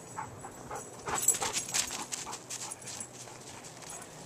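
Large dog panting as it runs up through the snow: a quick, irregular series of short rough breaths, loudest from about a second in, then trailing off.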